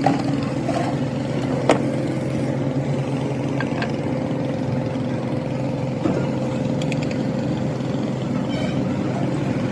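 Metal lathe running with a steady machine hum, with a sharp metallic click about two seconds in and a few fainter ticks.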